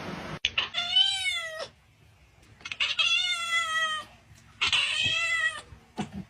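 A cat meowing three times. Each meow is long and drawn out, rising and then falling in pitch, with short pauses between them.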